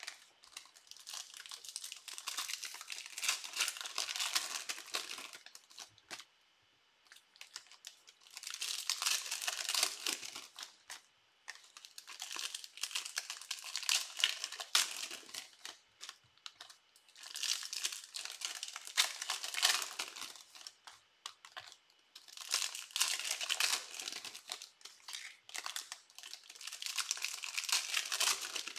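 Crinkling and tearing of foil trading-card pack wrappers as packs are ripped open and handled, in several bouts of a few seconds with short pauses between.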